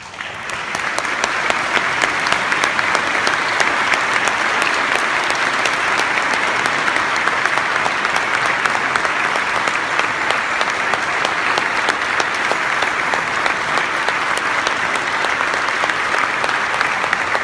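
Audience applauding steadily, starting just as the flute and bells music ends.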